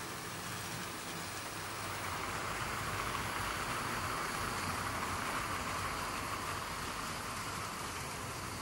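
00 gauge model train running along the layout's track, a steady rolling hiss of wheels and motor that swells about two seconds in as it passes close, then eases off near the end.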